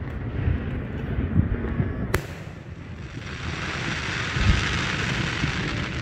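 Aerial fireworks going off: low booms, a sharp crack about two seconds in, then a sustained crackling hiss from about three seconds on as the glittering stars burn out.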